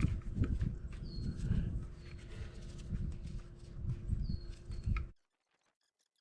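Close-up rustling, knocking and clicking of hands working on a motorcycle's rear brake caliper and pads, with a few short high chirps; the sound cuts off suddenly about five seconds in.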